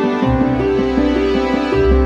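Background music: a keyboard plays a steady run of notes over a low bass.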